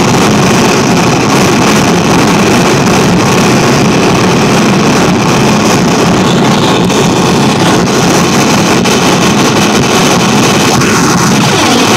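Xiaojia noise generator pedal played loud through a guitar amp: a steady, dense wash of electronic noise with no rhythm. Near the end a falling sweep runs through it.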